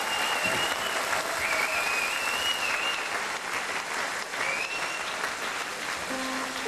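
Hall audience applauding, with a few high, wavering whistles over the clapping. Near the end, music comes in with held notes as the band strikes up again.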